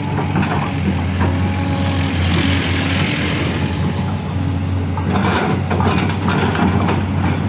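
LiuGong crawler excavator's diesel engine running steadily with a constant low hum, a hiss swelling and fading around the middle. In the last couple of seconds the steel bucket scrapes and clanks repeatedly against soil as it digs.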